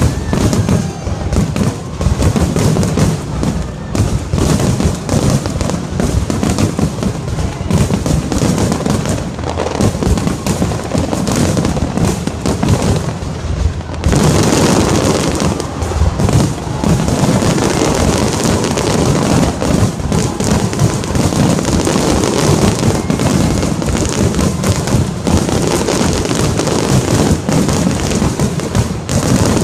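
An aerial fireworks display going off in a dense, unbroken barrage of bangs and crackles. From about halfway through, the crackle is sharper and higher.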